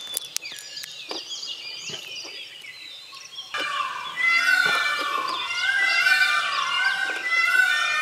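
A chorus of wild birds calling, with many repeated, overlapping gliding calls. The chorus thins to a few high calls and clicks for a couple of seconds, then comes back full about three and a half seconds in.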